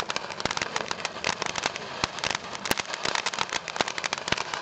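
Fireworks crackling and popping in a fast, dense string of cracks, with a few louder bangs standing out.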